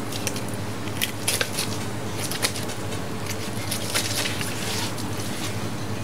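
Knife filleting a whole sea bass, the blade cutting along the backbone and under the fin, with scales and small bones crackling under it in scattered sharp clicks. A steady low hum runs underneath.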